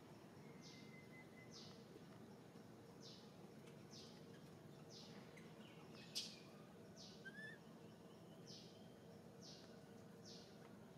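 Faint outdoor background with a bird repeating a short, high, falling chirp about once a second. A single sharp click sounds about six seconds in.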